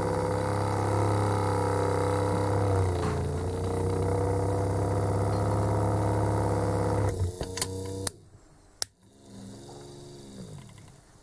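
Small drill press motor running steadily, spinning a Delphi common-rail injector control valve against its seat with lapping paste. Its pitch sags briefly about three seconds in as the load rises. About seven seconds in it is switched off and stops within a second, with a few clicks, followed by a single sharp click.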